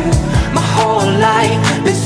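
Pop song with a singing voice over a steady drum beat.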